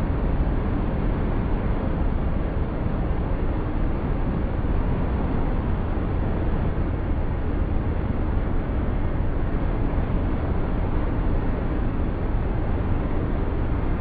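Steady wind and road noise heard from inside a hypercar accelerating flat out at close to 400 km/h, heaviest in the low end with no clear engine note.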